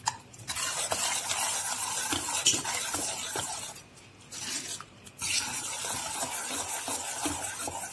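Steel ladle stirring and mashing cooked toor dal and spinach in a pressure cooker pot, scraping against the pot. It comes in two stretches with a short pause in the middle.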